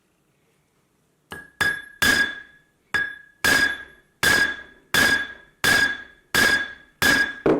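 Hammer blows on a thick, hard steel hex nut, squashing it flat onto a cord over an improvised anvil. About ten sharp metallic strikes at a steady pace, each with a brief ring, starting about a second and a half in.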